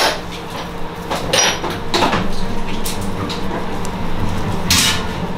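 Scattered clicks and knocks from gloved hands and a surgical clamp handling an anaesthetised dog's foreleg during surgical prep, over a steady hum; the loudest knock comes near the end.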